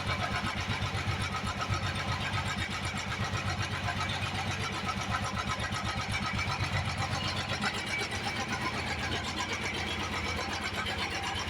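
Royal Enfield single-cylinder motorcycle engine idling with a steady, even thump.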